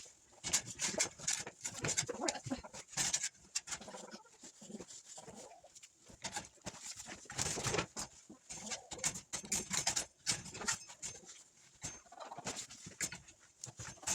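Chickens clucking and cooing, mixed with many short rustling and scraping clicks.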